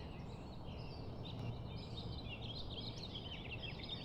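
Small birds chirping in quick, overlapping bursts over a steady low background rumble.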